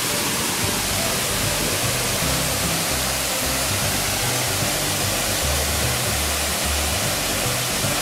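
Waterfall pouring into a plunge pool: a steady, loud rush of falling water. Low background music runs beneath it.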